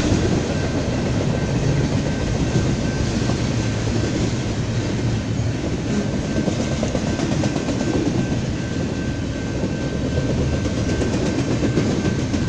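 Double-stack container freight cars rolling past at speed: a steady rumble and rattle of steel wheels on the rails, with a faint steady high-pitched tone above it.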